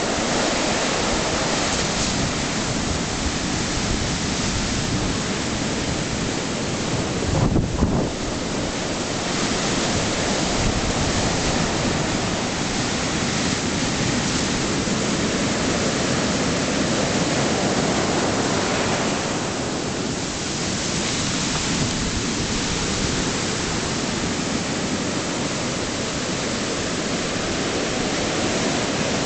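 Sea surf breaking and washing up a sandy beach, a continuous rushing noise, with wind buffeting the microphone. A brief, louder gust-like burst about eight seconds in is the loudest moment.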